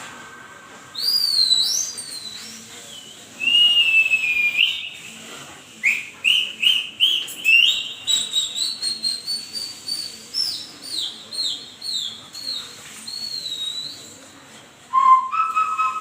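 Recorded whistling and chirping sounds played over a Bluetooth speaker: high whistles that swoop up and down, then a run of quick chirps each sliding down in pitch, and near the end a lower, faster string of chirps.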